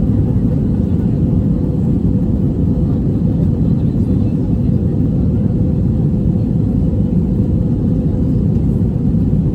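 Steady low rumble of an Airbus A321 airliner's engines and rushing air, heard inside the passenger cabin during the climb after takeoff.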